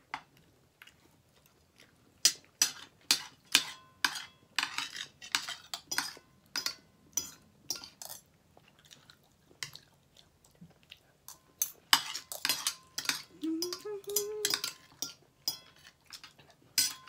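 Metal spoon and fork clinking and scraping on a dinner plate while eating, in a long run of irregular sharp clinks with short gaps, some leaving a faint ring.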